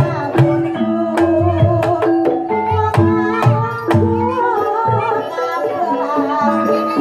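Javanese gamelan music of the kind that accompanies an ebeg horse-trance dance: held metallic pitched notes, sharp hand-drum strokes, and a singer's wavering melody over them.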